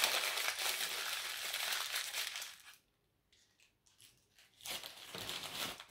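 Tissue paper crinkling and rustling as a wrapped item is unwrapped by hand for about three seconds, then a pause and a quieter rustle near the end.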